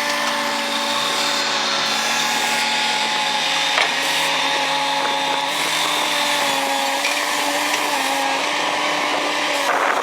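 Heavy earth-moving machines' diesel engines running under load: a steady mechanical whine whose pitch steps up and down as the machines work.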